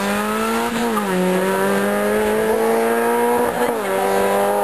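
Rally car engine accelerating hard away out of a hairpin, its pitch climbing steadily. The pitch drops sharply twice at upshifts, about a second in and again near the end.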